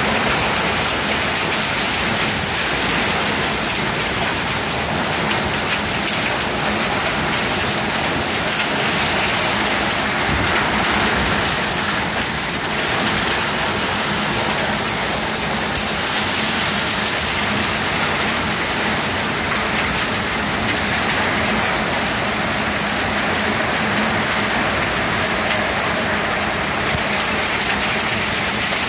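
Heavy downpour: a steady, dense rush of rain that keeps up without a break.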